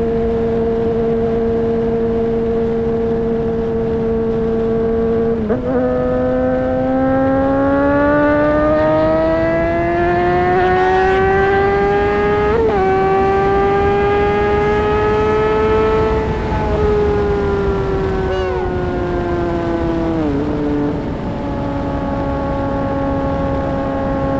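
2008 Honda CBR600RR's inline-four engine under way: it holds one steady pitch, then climbs in pitch as the bike accelerates, with a brief dip at a gear shift partway through, falls away as the throttle eases, and settles to a steady pitch again near the end. A steady rush of noise runs underneath.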